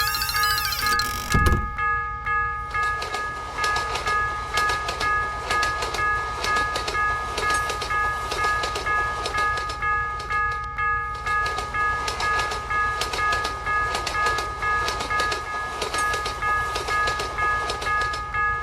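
A train passing a level crossing, its wheels clattering in a steady rhythm while the crossing's warning bell keeps ringing; a short low thump about a second and a half in.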